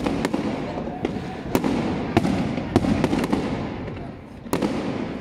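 Fireworks display: aerial shells bursting in a rapid series of loud bangs, about two a second, with crackling from the bursting stars filling the gaps. The barrage eases briefly near the end before another sharp bang.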